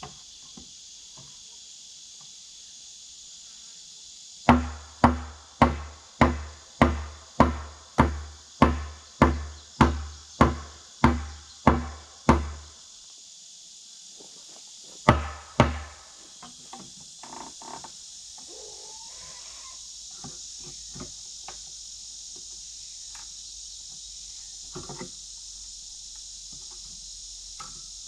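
Hammer driving a nail into wood: about fifteen even blows at roughly two a second, then two more a few seconds later. Crickets chirr steadily throughout.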